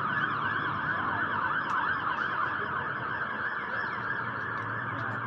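Emergency vehicle siren in fast yelp mode: a rapid up-and-down warble repeating about four to five times a second.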